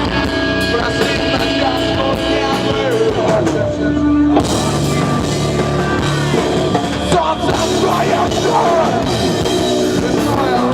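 Live rock band playing loud: drum kit and amplified instruments, with singing.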